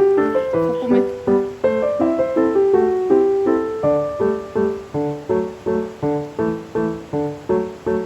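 Background piano music: struck notes and chords in a light repeating pattern, about three a second in the second half, stopping right at the end.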